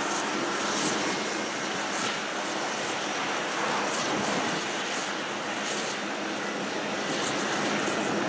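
Steady, distant jet-engine noise from airliners at the airport, an even rushing sound with no clear pitch.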